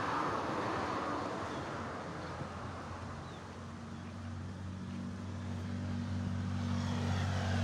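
Motor vehicle engine sound: a broad whoosh at the start that fades over a couple of seconds, then a steady low engine hum that grows louder through the second half.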